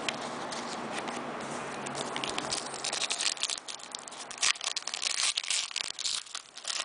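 Foil trading-card pack crinkling as it is handled and torn open, with a busy run of sharp crackles in the second half over a steady background hiss.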